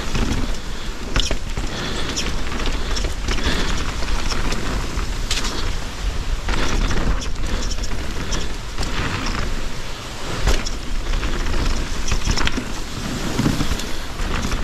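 A 170 mm-travel enduro mountain bike riding fast down rough, rocky singletrack, heard from a mounted action camera: tyres crunching over dirt and rocks and the bike rattling and knocking over many quick impacts, with wind rumbling on the microphone.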